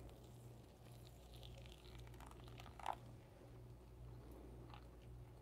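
Near silence: room tone with a steady low hum and a few faint small clicks.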